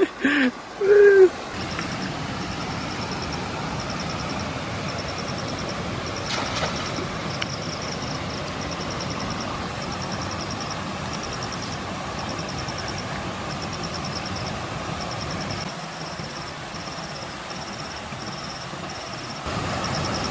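Steady rush of a fast-flowing river, with a high chirping repeated in short trains about once a second over it.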